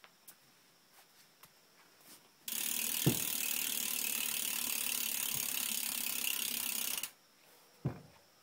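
Eastern bidirectional cassette hub on a BMX rear wheel freewheeling as the wheel spins. Its pawls click so fast they run together into a steady ratcheting buzz, which starts about two and a half seconds in and cuts off suddenly after about four and a half seconds.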